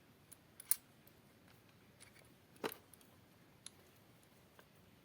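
Scattered sharp clicks and taps of a tripod quick release plate being pushed and seated into the tripod head's clamp, the two loudest about a second in and halfway through.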